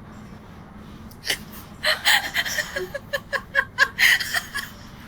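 A person laughing: a sharp breath, then a quick run of short 'ha' bursts that stop just before the end.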